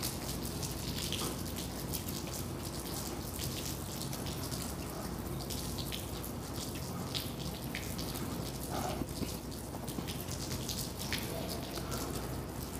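Water dripping and splashing, with scattered light ticks over a steady low hum.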